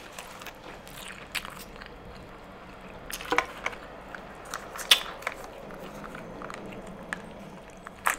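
Close-miked eating and handling sounds: quiet chewing, then a few sharp clicks and crinkles as a small plastic dipping-sauce cup is handled and its lid peeled open. The loudest click comes about five seconds in.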